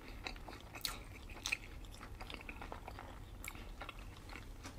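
Faint wet mouth sounds of someone chewing a tuna sushi roll: scattered small smacks and clicks, with a couple of louder ones about a second and a second and a half in.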